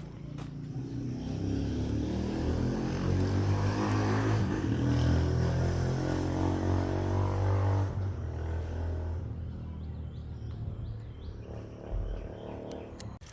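A motor vehicle's engine running close by, growing louder over the first few seconds and fading away after about eight seconds.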